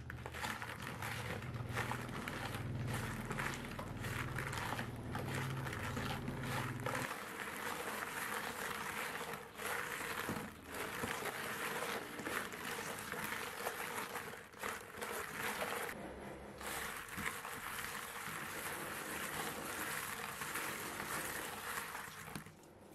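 Small green limes rubbed and rolled by hand with coarse salt in a bowl: a continuous gritty scraping and rustling of fruit and salt grains against the bowl, made of many quick strokes.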